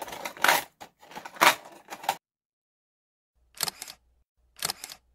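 Small hard objects clicking and scraping as pens and scissors are shifted about in a plastic desk organiser. After a short pause come two brief double-click sound effects, shutter-like, about a second apart.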